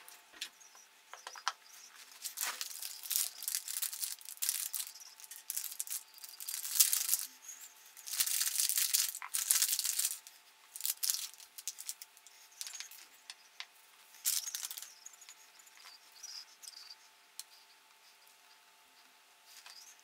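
Gloved hands taking apart a 1999 Johnson 9.9 two-stroke outboard's carburetor: irregular scratchy rustling of gloves and cloth with small clicks of metal parts and screws, louder in the middle.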